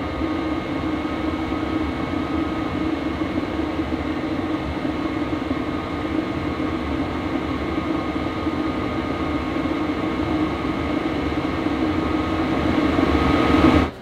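Webasto Air Top 2000 STC gasoline air heater running strong at full burn: a steady rush from its blower and burner with a faint whine over it, growing a little louder near the end. Its intake and exhaust have been freshly flushed of carbon build-up, and it is making good heat.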